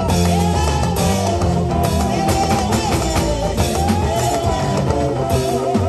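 Live band music: drum kit, keyboard and electric guitar playing together, with a wavering lead melody over a steady beat.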